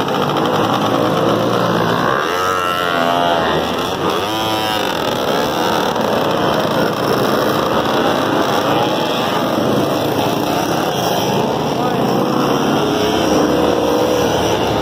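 Dirt bike engines running as several bikes ride in a group.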